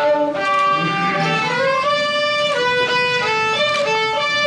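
Two fiddles playing a tune together, the music starting suddenly right at the beginning.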